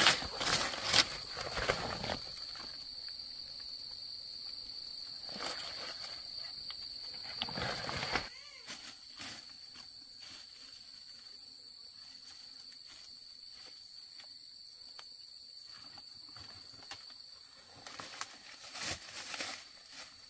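A steady, high-pitched insect call, one unbroken tone, fades out near the end. Over it come rustling and crackling, as of steps through dry vegetation, loudest in the first couple of seconds and again shortly before the end.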